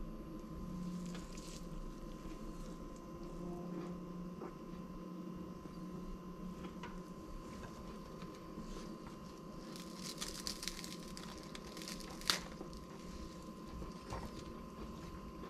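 Gloved hands handling a fork and slices of toast on china plates, faint scratchy rustling and small clicks over a steady low hum. The scratching thickens about ten seconds in, and a single sharp click follows shortly after, the loudest sound.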